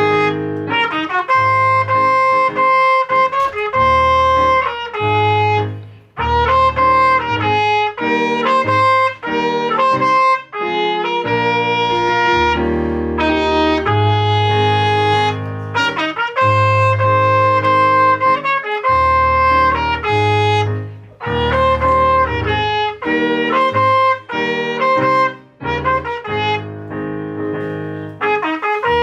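Instrumental pop-jazz music with a brass melody of held notes over bass and accompaniment, pausing briefly a few times.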